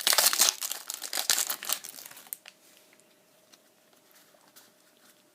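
Foil wrapper of a Pokémon trading card booster pack crinkling and tearing as the pack is opened: a dense crackle that stops about two seconds in.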